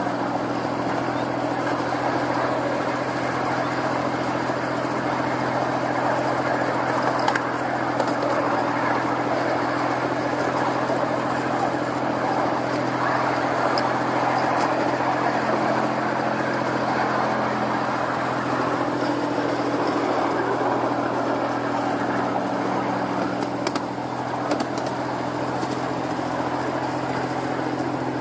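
Miniature ride-on train running along its track: a steady motor hum under the rumble of wheels on rail, with a couple of sharp clicks, one about seven seconds in and one near twenty-four seconds.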